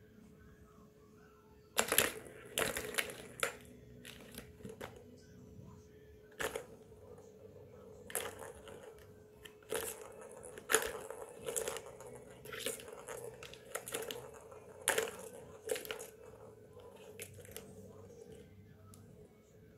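A kitten batting at a three-tier plastic ball-track tower toy: irregular sharp plastic knocks and rattles of the balls and rings, coming in quick clusters with short pauses between.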